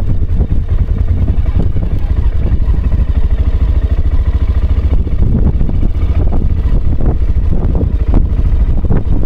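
Aprilia Pegaso motorcycle riding along a gravel track: a steady, loud engine drone mixed with heavy wind buffeting on the camera microphone.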